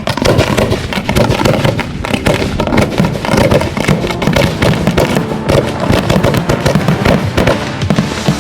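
Fireworks going off in a rapid volley of many sharp bangs and crackles, with music playing underneath.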